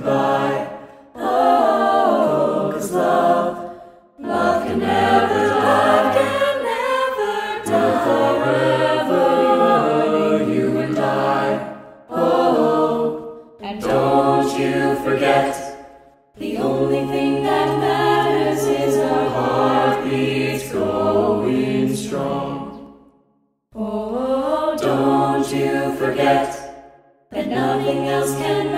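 Background music: layered, choir-like singing with no clear words, in long held phrases broken by short pauses every few seconds.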